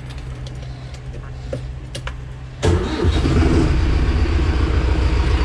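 Mahindra Arjun Novo 605 tractor's diesel engine started with the key, heard from inside the cab with its doors open. It turns over briefly and catches about two and a half seconds in, then settles into a steady idle.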